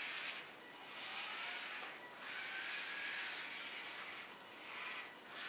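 Small DC gear motors of a homemade Arduino Bluetooth toy car whirring in several spurts, each lasting about half a second to two seconds, as the car drives and stops under tilt control from a tablet.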